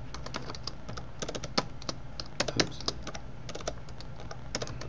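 Typing on a computer keyboard: irregular runs of key clicks, several a second, with a few louder strokes in the middle.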